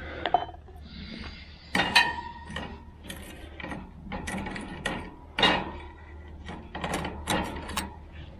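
Metal spoon and slotted skimmer scraping and clinking against a stainless steel bowl of molten pewter as surface oxides are skimmed off. There is a scatter of sharp metallic clinks, a few with a short ringing tone, and scraping between them.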